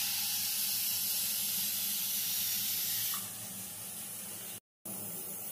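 Aluminium pressure cooker venting steam past its whistle weight with a steady hiss under pressure, as it does while coming up to whistle. The hiss eases a little after about three seconds and breaks off for a moment near the end.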